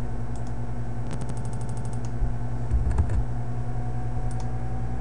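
Computer keyboard and mouse clicks over a steady low hum: a quick run of about fifteen clicks about a second in, then a few single clicks around three seconds and again just past four seconds.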